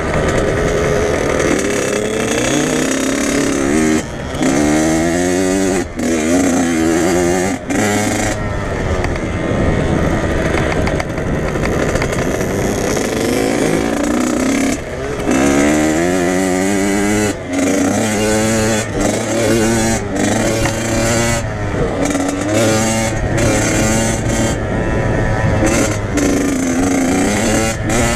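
Dirt bike engine revving hard and easing off again and again, its pitch climbing in repeated rises with brief drops between them as the rider works the throttle and gears.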